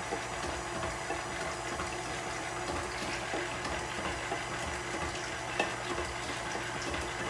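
KitchenAid stand mixer running on its low stir setting, the motor humming steadily while the beater churns thin liquid ingredients in the steel bowl.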